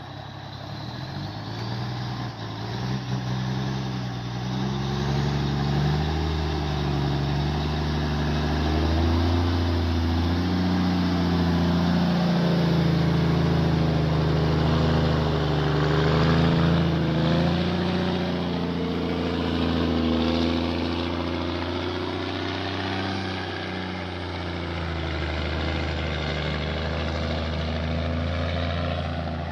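A heavy machine's engine running under changing load. It grows louder over the first few seconds, and its pitch slowly sinks and climbs again more than once.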